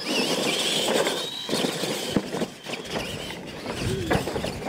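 Two electric R/C monster trucks launching off the start line and racing over dirt: a high motor and gear whine that rises as they pull away, with tyre noise and a few sharp knocks from the truck bodies and ramps.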